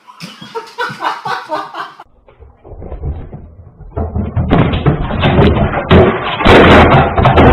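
Loud, rough banging and thumping, many knocks in quick succession, building up from about four seconds in.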